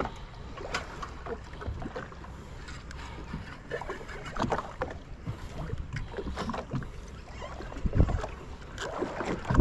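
Sea water splashing and sloshing against the side of a boat over a steady low rumble, with scattered irregular knocks and clicks as a jigging reel is cranked to bring a hooked fish up beside the hull.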